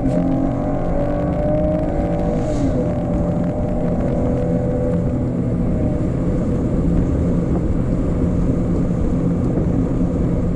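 2018 Chevy Camaro RS's 3.6-litre V6 pulling under throttle, its note climbing, then dropping about two and a half seconds in as the 8-speed automatic shifts up. After that it runs steadily, with road noise underneath.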